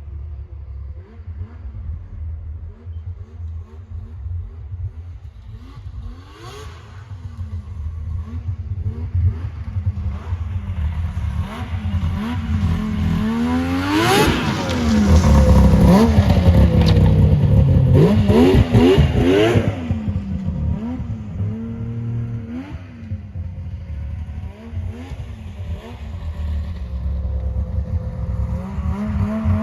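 Yamaha V-Max snowmobile's three-cylinder two-stroke engine running and being revved repeatedly, its pitch rising and falling with each blip of the throttle; the revs climb about halfway through and are loudest for several seconds before settling back down.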